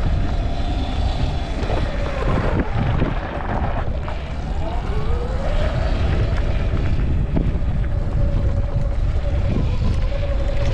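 Sur Ron electric dirt bike's motor whining while riding. The whine drops and climbs back up about four to six seconds in, then holds steady, over a constant low rumble and wind noise.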